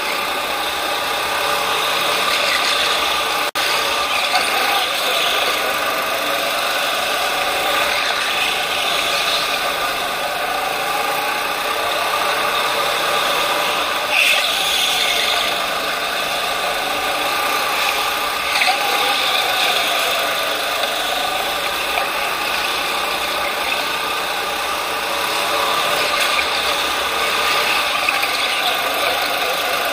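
Go-kart running hard around an indoor track, heard from on board: the motor's pitch rises and falls as it slows for corners and speeds up again, along with a steady rattle from the chassis.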